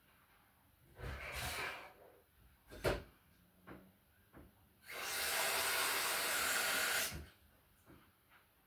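Water running from a tap for about two seconds, starting and stopping abruptly, with a shorter rush of noise about a second in and a sharp knock of handling near three seconds.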